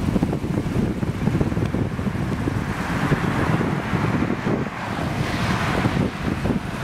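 Gusty wind buffeting the camera microphone, a loud rumble with a hiss that swells about halfway through.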